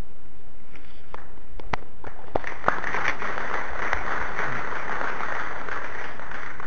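Audience applauding: a few scattered claps about a second in, building into full applause by about two and a half seconds in.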